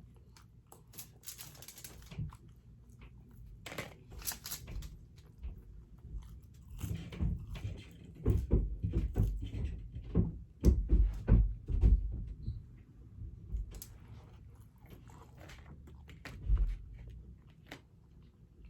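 A person chewing and biting food close to the microphone, with wet mouth clicks and smacks, busiest and loudest in the middle.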